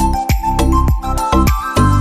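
Background music with a steady beat, a strong bass and a melody.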